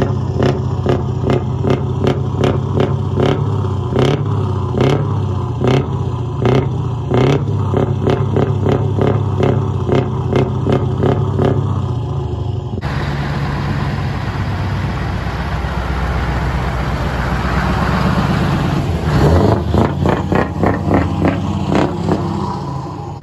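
Scania 164L 580 V8 through a straight-pipe exhaust. It runs loud with a regular pulsing beat of about two a second. After a cut it swells as it is revved, then pulses again near the end.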